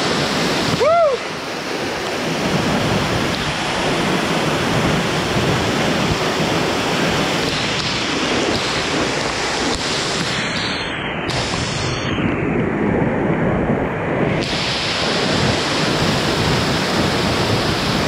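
Large waterfall pouring down close by: a loud, steady rush of falling water, with wind buffeting the microphone.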